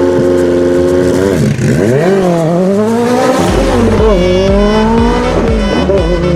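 Racing car engine at high revs, held steady and then swooping down and up in pitch several times as it is revved. From about halfway a music track with a steady beat comes in under it.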